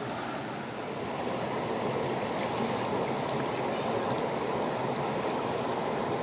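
Rushing water of a stream, a steady, even rush.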